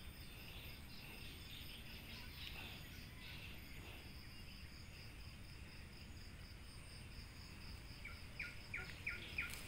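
Jungle insects trilling steadily in a fast, even pulse, with faint bird chirps. Near the end comes a quick run of short sharp sounds, about three a second.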